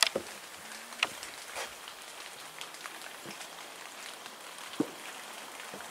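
Irregular footsteps and taps of hikers on a trail and steps, a few sharp clicks scattered over a steady hiss.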